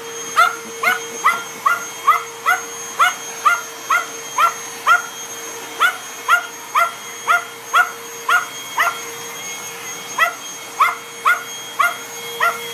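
Small dog barking in quick, high-pitched yips, about two to three a second with a couple of short pauses, while attacking an upright vacuum cleaner. The vacuum's motor hums steadily underneath.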